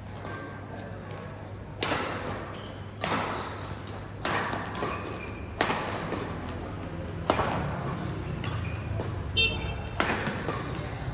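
Badminton rackets striking a shuttlecock in a doubles rally: sharp hits about every second or so, each echoing briefly in the hall, with a short squeak just before the last hit.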